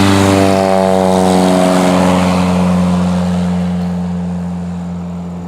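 Kitfox homebuilt airplane's 80-horsepower Jabiru engine and propeller running steadily, getting gradually quieter toward the end.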